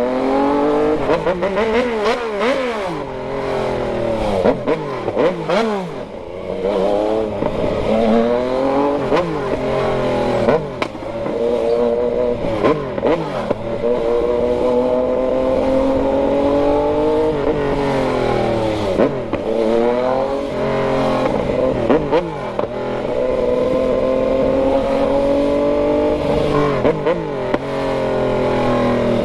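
Yamaha MT-09's inline three-cylinder engine running under load, its pitch climbing and dropping sharply again and again, with a few stretches of steady running in between.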